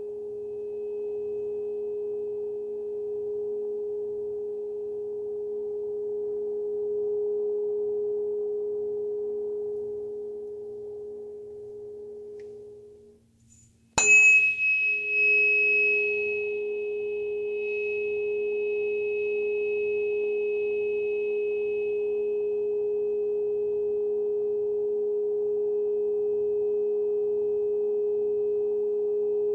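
Solfeggio tuning fork ringing a steady pure tone that dies away about 13 seconds in. A second later the fork is struck again with a sharp metallic tap, the loudest sound here. A bright high overtone rings briefly and fades within a few seconds, while the steady tone returns and holds.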